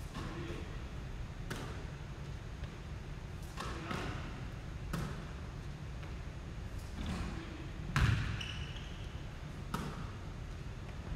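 Basketball bouncing on a hardwood gym floor and being caught during a shooting drill: a series of separate thuds a second or more apart, the loudest about eight seconds in, echoing in the big gym.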